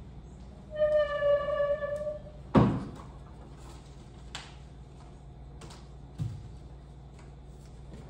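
A small child's drawn-out high vocal sound lasting about a second, then a sharp knock on the furniture, followed by a few light clicks and a softer thud as things are moved about on a table.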